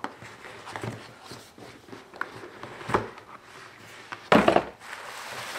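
A cardboard gift box being handled and opened by hand, with light taps and scrapes, then a louder rustling burst about four seconds in. Plastic wrapping starts to crinkle near the end.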